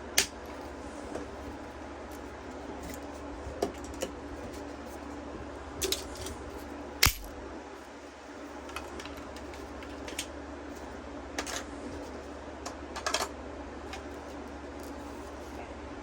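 Irregular plastic clicks and snaps as an old TV remote control's casing is pried apart and handled, with one sharper snap about halfway through, over a steady low hum.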